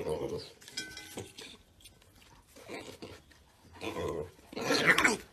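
Piglet eating from an enamel pot of grain, chewing and snuffling with a series of short grunts, the loudest just before the end.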